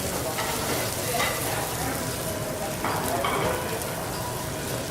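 Food sizzling on a teppanyaki griddle: a steady hiss.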